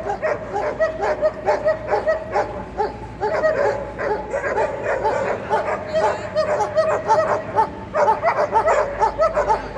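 German shepherd dogs barking and yipping in a rapid, unbroken string of short, high yelps, several a second.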